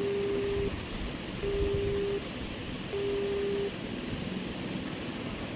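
Telephone busy tone: three steady, low single-pitch beeps, each a little under a second long and about one and a half seconds apart, signalling that the dialled number is engaged.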